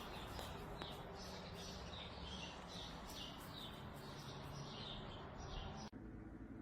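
A small animal chirping: a string of short, high chirps, each falling in pitch, about two a second, over a soft steady background, cut off suddenly near the end.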